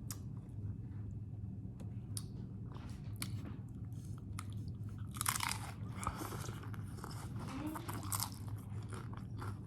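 Close-up crunching and chewing of hard-shell tacos with pickles, a run of crisp crackles from biting into the shells, busiest about halfway through.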